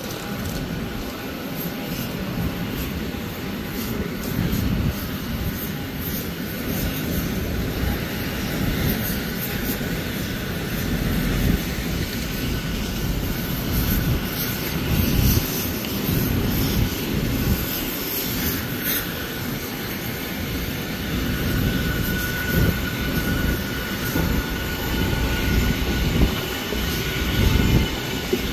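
Steady whine and hum of airport apron machinery around a parked Boeing 737-800 during boarding, with an uneven low rumble underneath.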